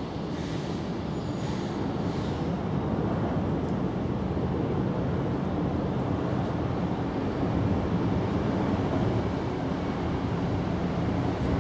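Steady low rumble with a faint hum in it, slowly growing a little louder.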